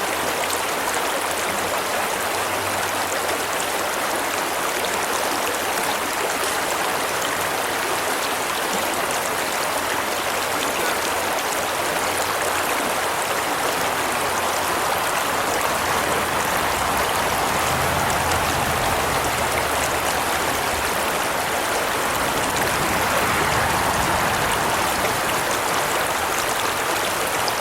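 Small trout stream's water rushing and splashing, a steady, even wash of sound.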